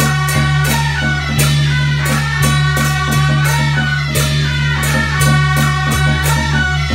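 Beiguan ensemble music: several suona horns playing a melody together, with drum and cymbal strokes keeping a steady beat.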